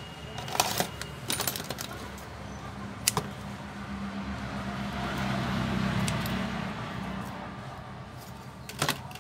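Sharp metallic clicks and clinks of hand tools being picked up and set down on the repair bench: a few near the start, one about three seconds in and a pair near the end. Between them a motor vehicle passes outside, swelling to its loudest about six seconds in and then fading.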